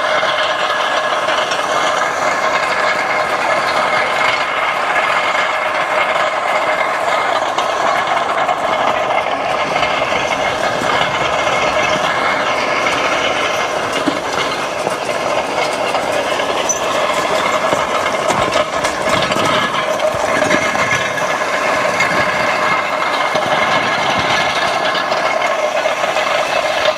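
Horse-drawn steel ridged roller-packer (cultipacker) rolling over fresh crusher-run gravel, its cast rings rattling and clanking steadily with a metallic ring.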